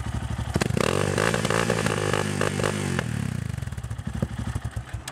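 Yamaha MT-03's single-cylinder engine through a Takkoni aftermarket slip-on exhaust, thumping at idle, then blipped with a crack and held at higher revs for about two seconds before dropping back to a pulsing idle with a pop or two.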